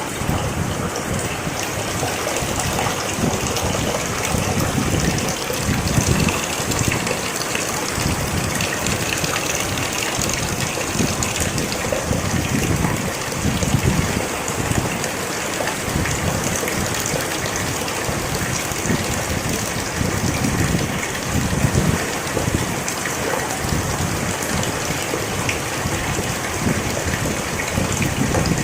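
Steady rain falling: a continuous even hiss, with low rumbling swells that rise and fade every second or two.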